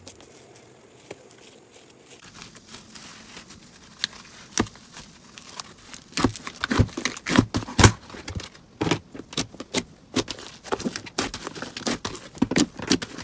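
Slime being squeezed and worked by hand: quick sticky clicks and crackly pops, sparse and soft at first, then coming thick and fast and louder from about halfway through.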